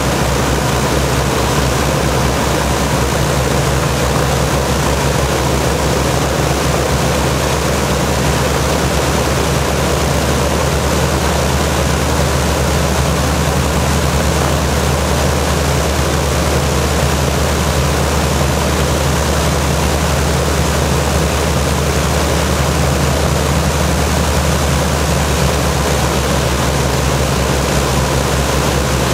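Rolls-Royce Griffon V12 piston engines of an Avro Shackleton Mk 2 running steadily during a ground run, their contra-rotating propellers turning. The result is a loud, even drone with a deep hum that stays unchanged throughout.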